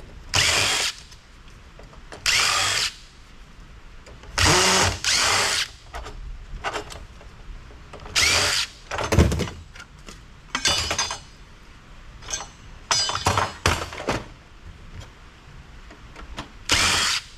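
Power drill-driver spinning screws out of amplifier heat sinks in short bursts, about eight of them, with a few clicks and one low thud about nine seconds in.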